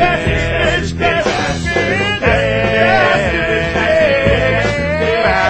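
Background music: a song with a singing voice over a band with a steady beat.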